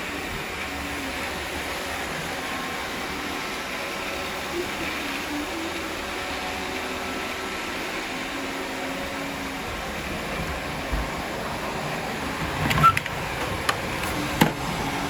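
Robot vacuums running at work on the floor, a steady whirring hum, with a few sharp knocks near the end.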